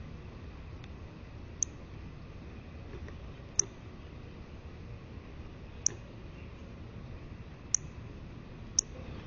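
Northern cardinal giving five sharp, high chip notes, spaced a second or two apart, over a steady background hiss.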